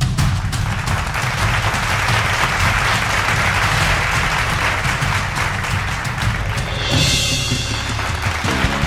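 Background music with a steady low bass and drum bed, and audience applause over it that thins out about seven seconds in.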